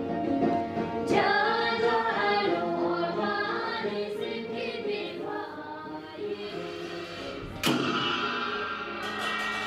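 Background music with a choir of voices singing, with sudden loud entries about a second in and again near the end.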